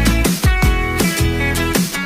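Background music with a steady beat: guitar over a drum kit.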